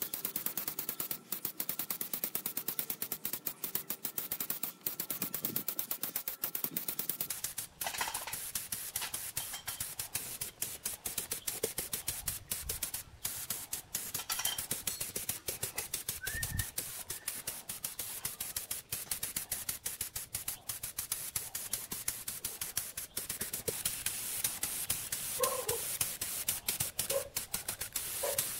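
Compressed-air paint spray gun hissing as paint is sprayed onto metal machine parts, the hiss broken by many brief gaps.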